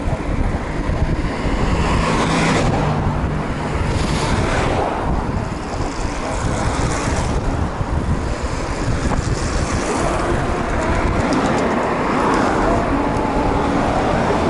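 Steady road traffic noise, with several vehicles swelling past one after another.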